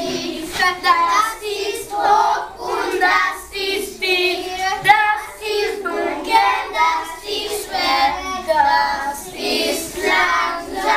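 A group of young children singing a song together, their voices continuous and rhythmic throughout.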